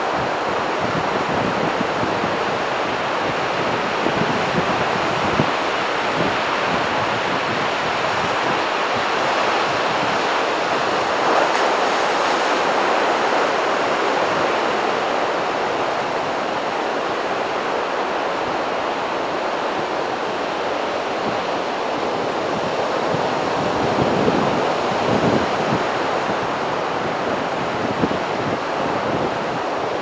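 Heavy surf from a rough sea breaking on a beach: a steady wash of noise that swells louder now and then as big waves break, with wind on the microphone.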